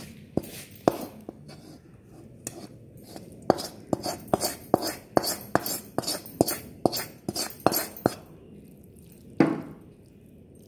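A spoon clinking and knocking against a dish as masala is spooned onto butter-fried idlis. A few scattered knocks, then a quick run of clinks, about two to three a second, for several seconds, and one last knock near the end.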